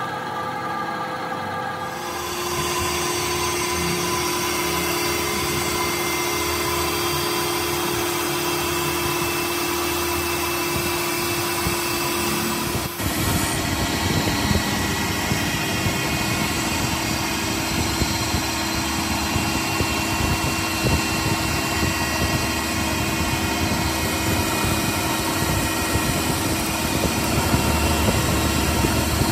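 Metal lathe running and turning a steel bar, the cutting tool taking a cut: a steady machine hum with a few held tones under the hiss of the cut, louder from about two seconds in.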